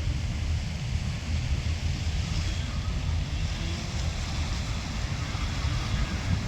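Wind buffeting the microphone: a fluctuating low rumble with a fainter steady hiss above it.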